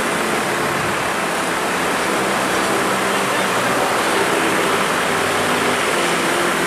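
Steady road traffic noise: a constant hiss of passing vehicles with a faint low engine hum underneath.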